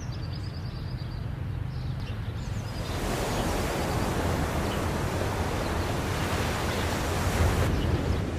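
Ocean surf washing on a beach with wind on the microphone, a steady rushing noise with a heavy low rumble that grows louder about three seconds in and eases slightly near the end.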